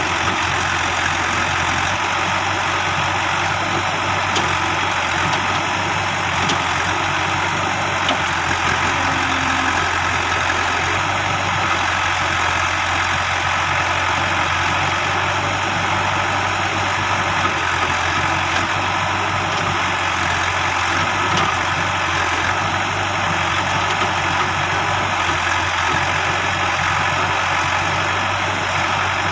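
JCB 3DX backhoe loader's diesel engine running steadily, with an even low hum and no marked revving or strikes.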